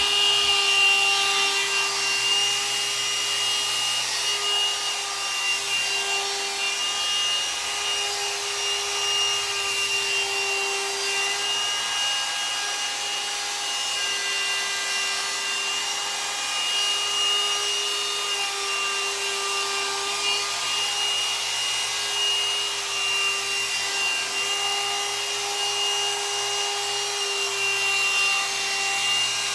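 Hot-air dryer brush (blow dryer styler) running steadily: a constant motor whine over the rush of blown air.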